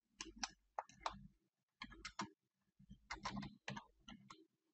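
Computer keyboard typing: faint, quick keystrokes in irregular little runs.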